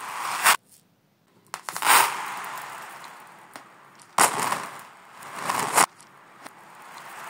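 Handfuls of small plastic beads and acrylic gems clattering across a laminate floor, played in reverse: about four rattling clatters, some swelling up and cutting off sharply.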